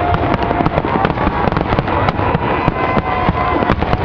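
Many fireworks and firecrackers going off at once: a dense, continuous run of bangs and cracks, with whistling tones that waver through it.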